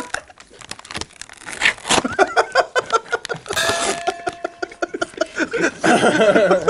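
Two men laughing together in a run of quick, pulsing laughs. A short steady tone lasts about a second near the middle.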